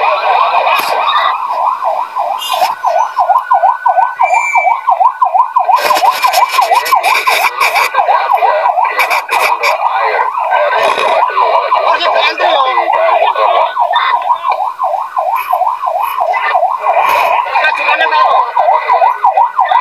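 Fire truck siren on a fast yelp, sweeping up and down about three to four times a second without a break.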